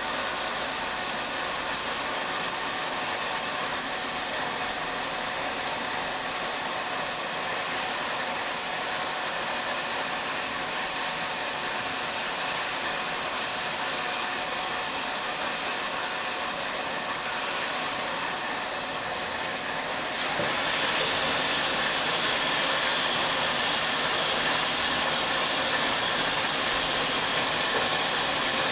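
Hyundai-Kia KH80G horizontal machining center running, a steady whirring hiss with faint steady tones; about 20 seconds in it grows slightly louder and a higher whine joins in.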